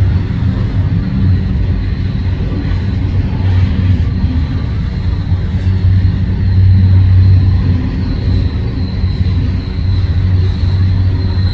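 CSX freight train rolling past at close range with a loud, steady low rumble. A thin high wheel squeal grows in the second half.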